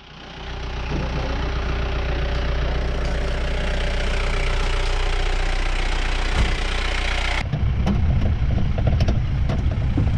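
Safari jeep's engine running steadily. About seven seconds in, the sound changes abruptly to a deeper rumble with light knocks and rattles.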